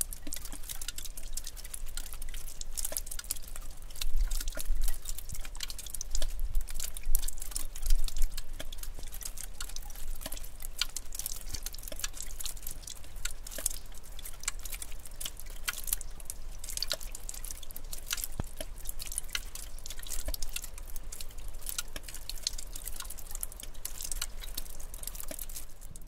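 Water dripping in a cave of icicles and seeping spring water: many separate drops falling at an irregular pace over a faint hiss, with a couple of low rumbles around four and eight seconds in.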